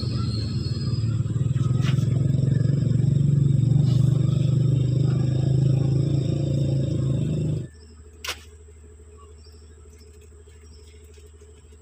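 Mitsubishi 4D56 four-cylinder diesel engine idling with a steady low rumble, then shut off abruptly about two-thirds of the way through, followed by a single sharp click.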